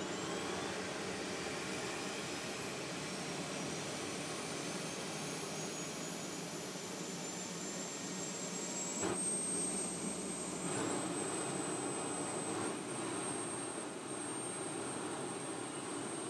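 Jet engine turbine whine spooling up: a high whine climbs and then holds steady over a constant rushing noise, stepping up slightly about nine seconds in.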